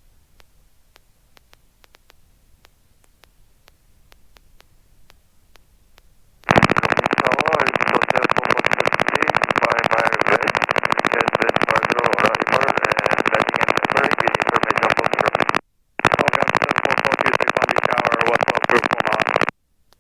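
Steady rushing noise on the helicopter's radio and intercom audio, limited to a telephone-like band. It cuts in suddenly about six and a half seconds in and drops out abruptly for a moment about two-thirds of the way through, then again near the end. Before it, only faint ticks.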